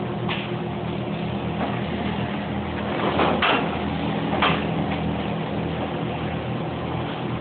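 Industrial machine running with a steady hum, broken by a few short rushing bursts. The loudest bursts come around the middle.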